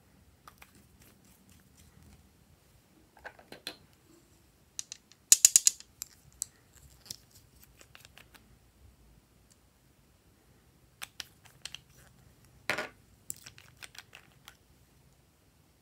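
Small plastic bottles being handled over a bowl of slime: scattered light clicks and taps, with a quick run of sharp clicks about five seconds in and a single louder knock later on.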